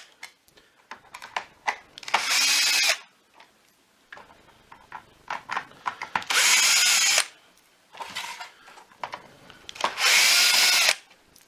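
Electric drill with a T20 Torx bit, whirring in three short bursts of about a second each as it backs screws out of the plastic housing of a vacuum floor head. Between the bursts come small clicks and knocks of handling.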